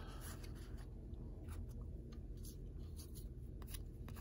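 Faint scattered clicks and rustles of baseball cards being handled and flipped through by hand, over a low steady hum.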